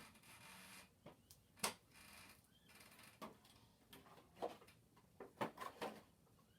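Faint, scattered clicks and taps of an action figure and its plastic packaging being handled, several coming close together near the end.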